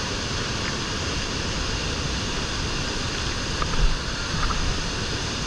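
Niagara Falls' water crashing onto the rocks at the foot of the falls: a steady, unbroken rushing of heavy falling water. A brief low thump about four seconds in.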